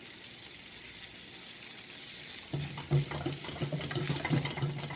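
Butter and fresh sage leaves sizzling in a hot nonstick frying pan. About two and a half seconds in, the pan starts being shaken back and forth on the gas burner grate, adding a quick, rhythmic metal rattle and scrape over the sizzle.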